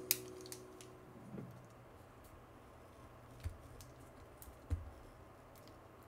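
Faint handling of paper collage pieces on a cutting mat: soft rustles and a few light taps and clicks as torn paper is pressed down onto a card, the loudest two around the middle and near the end. The last piano chord of the background music dies away at the very start.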